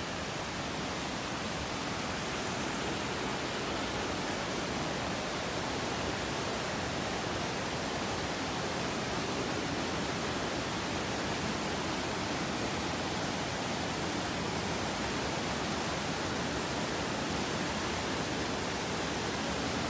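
Steady rushing of white-water rapids and a waterfall, an even roar that grows slightly louder toward the end.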